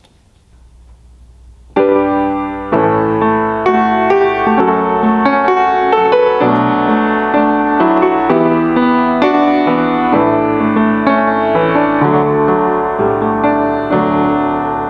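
Piano music starts abruptly about two seconds in and plays on as a steady flow of notes. Before it there is only faint room tone.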